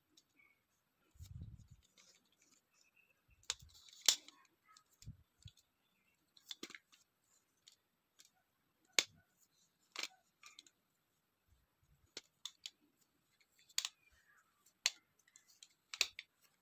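Scattered sharp plastic clicks and a few soft low bumps from a phone clamp and selfie-stick tripod being handled and adjusted, about one click every second or two.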